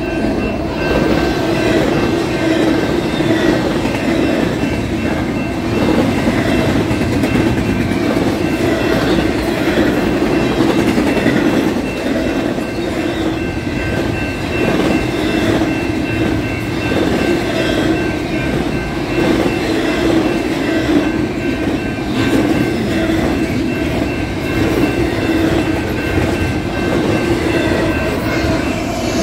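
Double-stack intermodal freight train passing close by: steady loud noise of steel wheels running over the rails, with a faint steady high-pitched ringing underneath.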